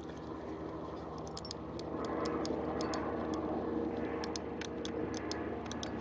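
Logitech G500 gaming mouse's Omron micro switches being pressed by hand, an irregular series of sharp little clicks starting about a second in, the freshly replaced switch clicking as it should. A steady low drone runs underneath.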